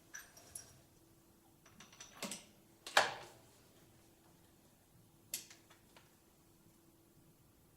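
Mechanical clicks from handling a Bergara BA13 TD break-action single-shot rifle: light clicks, one sharper clack about three seconds in with a short ring after it, then a few more clicks. The clicks are far too quiet to be a shot.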